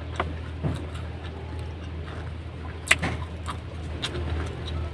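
Close-miked chewing of crispy breaded chicken katsu: scattered crunches and wet mouth clicks, with one sharper crunch about three seconds in.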